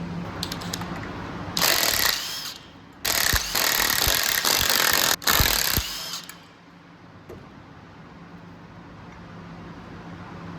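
Impact wrench run in two bursts, a short one of about a second and then a longer one of about three seconds, undoing the flywheel bolts of an engine on the bench.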